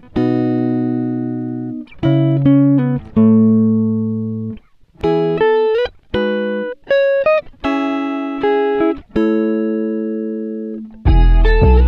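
Background music: plucked-string chords and single notes, each ringing and fading before the next. A louder, fuller part with deep bass comes in near the end.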